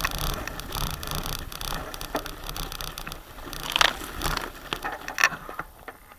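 Bicycle pushing through tall dry grass: stalks brushing and scraping against the frame and wheels in a dense rustle, with two louder scrapes about four and five seconds in, then quieter near the end.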